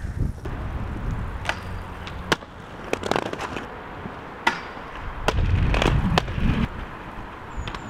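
Inline skates rolling on concrete, with a series of sharp clacks as wheels and frames strike the ground or an obstacle. Low wind rumble on the microphone swells about five to six seconds in.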